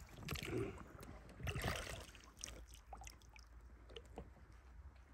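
Water swishing against a small boat, twice in the first two seconds, then a few light knocks of gear on the boat.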